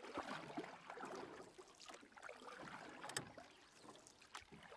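Faint, irregular background noise with a single sharp click about three seconds in.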